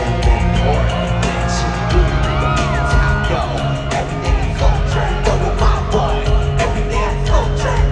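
Loud live music through a concert sound system: a singing voice over drums and bass, with audience yells and whoops on top.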